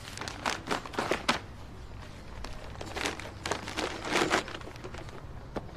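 Paper envelope rustling and crinkling as it is handled, in two spells of short crackles, the second about three seconds in.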